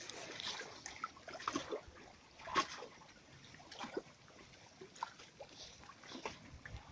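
Water lapping and splashing lightly against a floating raft's edge and a submerged keep net, in irregular small splashes; the clearest comes about two and a half seconds in.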